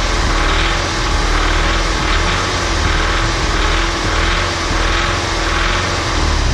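Audi S3 2.0 TFSI (CDLA) turbocharged four-cylinder petrol engine running at a near-steady speed, its pitch wavering only slightly.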